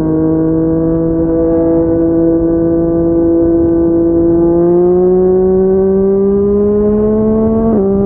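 Yamaha MT-09's inline-three engine through a Yoshimura R55 slip-on exhaust, riding at steady revs, then pulling with a slow rise in pitch. Near the end the pitch drops sharply as it shifts up a gear.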